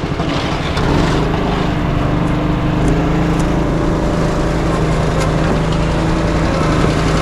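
Engine running at a steady speed, getting a little louder about a second in.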